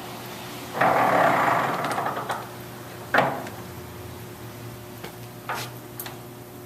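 Victor gap bed engine lathe running with a steady hum, while its speed controls are worked. About a second in a loud rush of mechanical noise lasts over a second, a sharp clunk follows about three seconds in, and lighter clicks come near the end.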